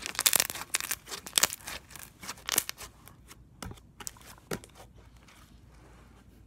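Slime being pressed and squished by hand, giving a rapid run of crackles and pops for the first three seconds, then only a few scattered clicks as it is pulled out into a sheet.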